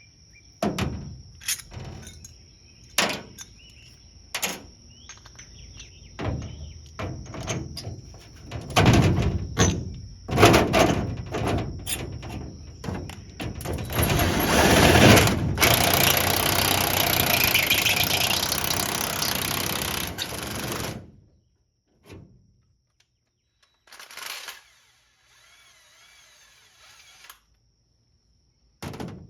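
Hands-on shop work: a series of sharp metal knocks and clanks for the first half, then a power tool runs steadily for about seven seconds and cuts off.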